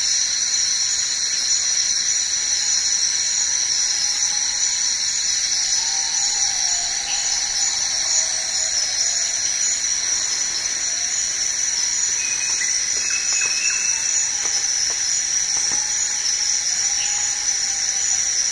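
A steady, high-pitched chorus of rainforest insects, with a few faint whistled notes near the middle.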